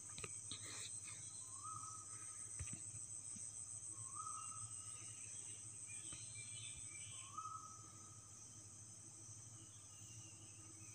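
A steel ladle clicks and scrapes against a steel kadhai as drumstick pieces are turned in hot oil, over a steady high chirring of crickets. A short rising whistle-like note sounds three times.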